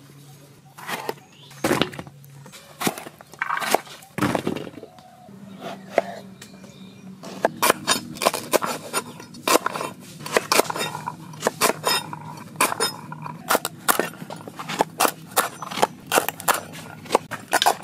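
Large knife cutting vegetables on a wooden board: scattered cuts at first, then from about seven seconds in a quick run of chops through drumsticks (moringa pods), about three a second.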